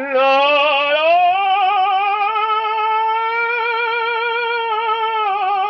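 A singer's operatic voice sustaining one long vowel, a vocal exercise in a singing lesson: the note slides up over the first two seconds, then is held with an even vibrato.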